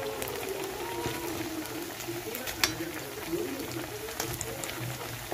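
Stuffed potato tikkis shallow-frying in hot oil in a kadhai: a steady sizzle with many small crackles and pops, one sharper pop about two and a half seconds in.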